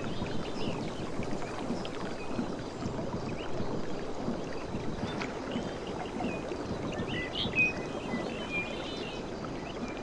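Sea surf washing steadily on a shore, with short high bird calls scattered through it, the clearest about seven and a half seconds in.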